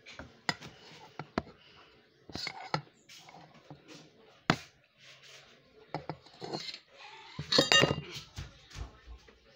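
Dishes and cutlery clinking and knocking: several separate sharp knocks, then a louder clatter of clinks near the end.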